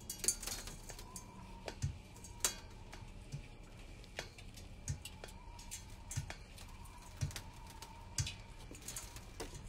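High-heeled shoes stepping down the rungs of a metal ladder: a sharp click and a dull knock about once every second or so, six or seven steps.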